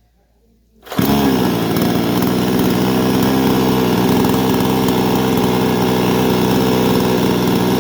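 T-Maker two-stroke gasoline chainsaw started warm with one pull of the starter cord and no choke; it catches about a second in and runs steadily at an even pitch.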